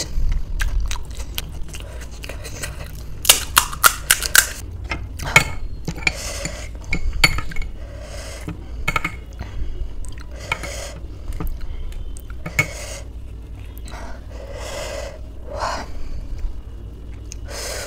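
Metal spoon clinking several times against a glass bowl a little over three seconds in, then scraping and scooping repeatedly as ghugni is spooned out of the bowl into a crisp panipuri shell.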